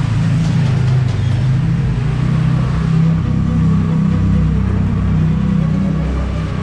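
TVS Ntorq 125 scooter's single-cylinder engine running steadily at low speed, gently picking up speed, inside a concrete tunnel.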